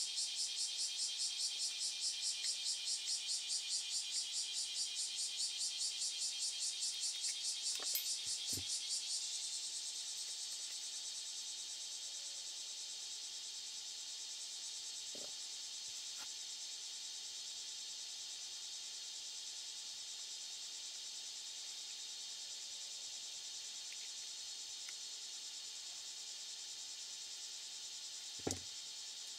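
Insects chirring, high-pitched, in a quick pulsing rhythm of about four pulses a second that gives way about nine seconds in to a steady chirr. A few small clicks from hand tools and parts, the sharpest near the end.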